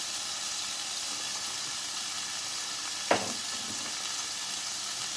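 Ground beef sizzling steadily in a frying pan, with a single sharp knock about three seconds in.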